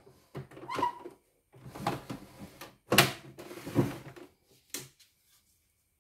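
Hard plastic knocks and sliding scrapes as a detachable embroidery unit is pushed along a wooden bench and clicked onto an embroidery machine's free arm. The sharpest knock comes about halfway through, and a last one comes near the end.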